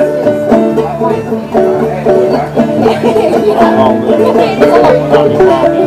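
Banjo and upright bass playing a bluegrass tune: quick banjo picking over a steady plucked bass line, with no singing.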